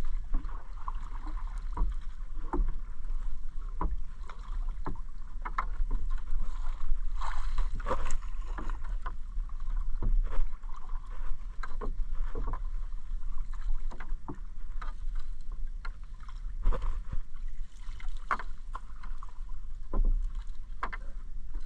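A wet gillnet being hauled by hand over the side of a wooden outrigger canoe: water splashing and dripping off the mesh, with frequent short knocks and clicks, over a low steady rumble.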